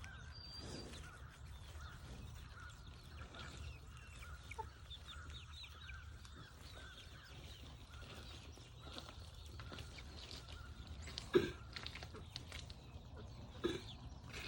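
A flock of chickens clucking and chirping, many short calls overlapping, over a steady low rumble. Near the end there are two louder sudden sounds.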